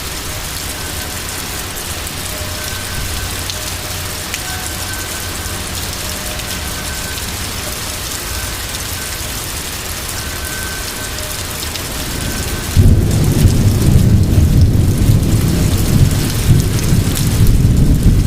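Steady heavy rain in a severe thunderstorm. About thirteen seconds in, a loud, deep rumble of thunder starts suddenly and rolls on to the end.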